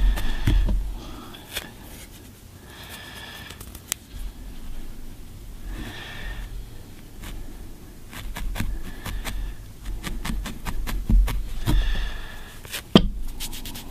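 A felting needle stabbing repeatedly into wool, heard as runs of small quick clicks, with a sharper click near the end. Short soft hissy bursts come between the runs.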